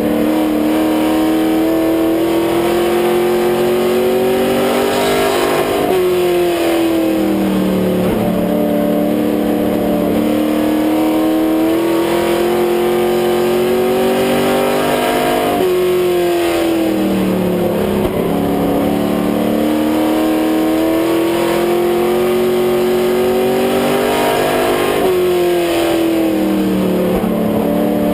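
Grand Stock race car's engine heard from inside the cockpit, running steadily under load. Its pitch climbs slowly, then falls off sharply three times as the driver lifts for the turns, and climbs again on the next straight.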